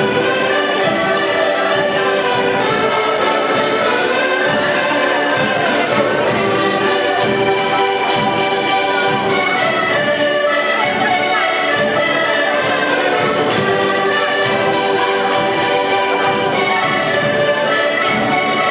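A group of Portuguese concertinas (diatonic button accordions) playing a tune together in ensemble, with sustained reedy chords over a steady beat.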